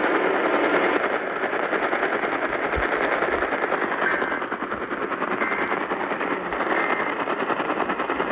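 Dense crackling static from a radio receiver, a steady rough hiss with no voice.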